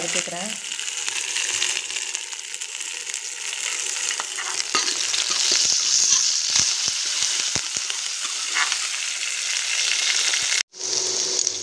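Shallots and curry leaves sizzling steadily in hot oil in a kadai while a steel ladle stirs them through, with scattered sharp clicks. The sound drops out for an instant near the end.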